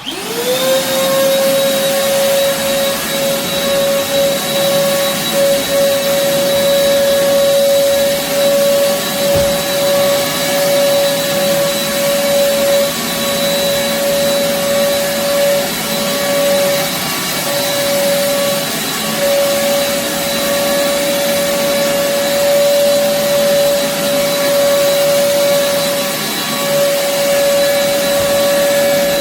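An old bagless vacuum cleaner switches on, its motor spinning up within the first second to a steady whine, and runs over carpet. The owner says this vacuum has lost its suction.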